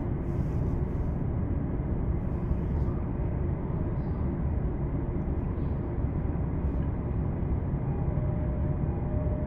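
Steady low rumble inside a commuter train carriage, with two faint short hisses in the first few seconds.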